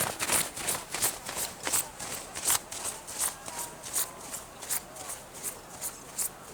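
A regular run of sharp crackling clicks, about three a second, louder at the start and a little softer as it goes on.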